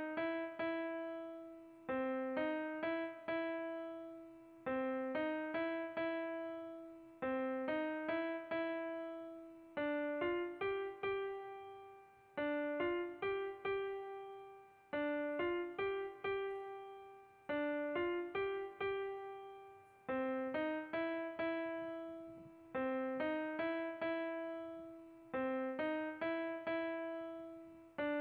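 Background music: a simple electronic piano-like melody of single notes that strike and fade, a short phrase repeating about every two and a half seconds.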